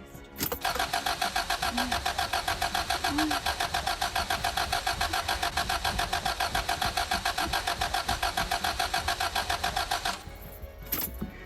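2003 Toyota Camry engine being cranked by the starter, turning over in a fast, even rhythm for about nine seconds without catching, then cutting off. It cranks but won't start. A click comes just before the cranking begins, and another about a second after it stops.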